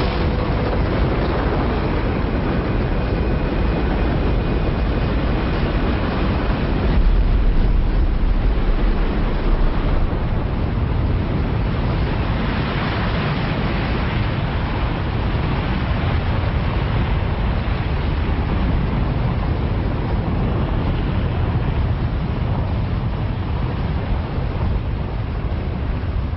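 Soyuz rocket launch noise: a loud, steady rushing rumble that swells about seven seconds in.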